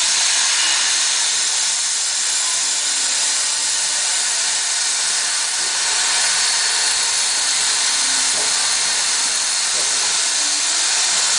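CNC cutting torch cutting through 3/4-inch steel plate, a steady loud hiss.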